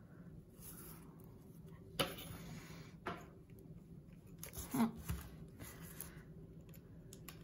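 Handling noises from a model vehicle being assembled: a wooden dowel axle scraping as it is pushed through a plastic straw, and a plastic wheel being pressed onto the dowel. A rustling scrape comes about two seconds in, a click shortly after, and a few knocks near the middle.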